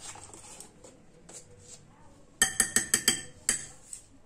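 A spoon tapped against a mixing bowl: a quick run of about seven ringing clinks lasting about a second, starting a little past halfway.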